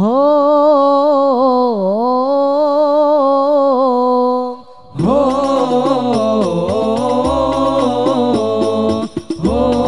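A solo male voice sings a long, ornamented sholawat line unaccompanied and breaks off about four and a half seconds in. Then a group of male voices comes in together over a steady drum beat.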